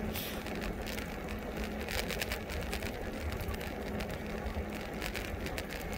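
E-bike riding noise: wind buffeting the microphone over tyre rumble, with a steady low hum from the pedal-assist drive.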